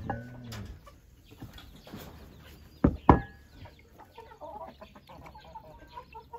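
Domestic chickens clucking, with short soft repeated notes mostly in the second half. About halfway through there are two loud, sharp knocks close together.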